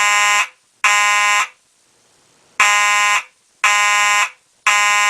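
Simplex 4903-9401 SmartSync fire alarm horn sounding in code 3, the temporal-three evacuation pattern. It gives blasts of about half a second in groups of three with a pause of about a second between groups: the last two blasts of one group, then a full group of three.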